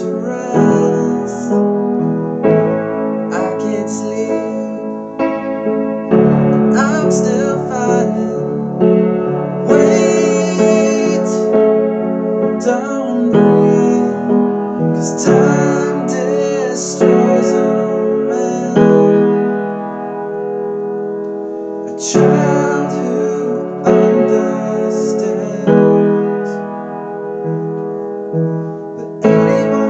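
Piano played with both hands: chords struck and sustained one after another in a steady song rhythm, easing to a softer stretch about two-thirds of the way through.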